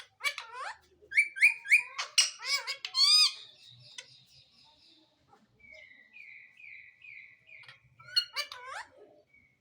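Pet parrot calling: a quick run of sharp, arching squawks, then a softer series of about five short repeated notes, then another burst of squawks near the end.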